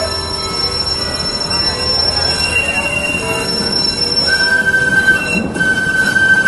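Steel wheels of a rail vehicle squealing against the rails as it moves. Several high, steady squeal tones overlap and shift in pitch over the noise of the running car.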